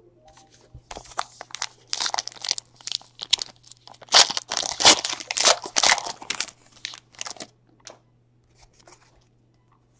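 Packaging being crinkled and torn open by hand, a run of sharp crackles that starts about a second in, is loudest in the middle and dies away near the end.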